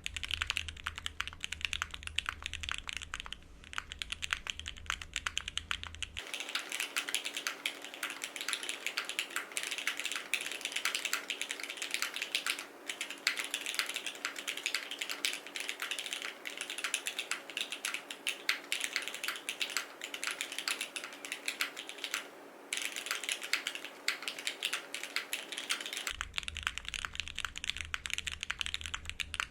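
Continuous fast typing on a Cycle7 mechanical keyboard with lubed and filmed Gateron Oil King linear switches, an FR4 plate, no foam and GMK doubleshot ABS keycaps: a dense patter of keystrokes that breaks off briefly twice.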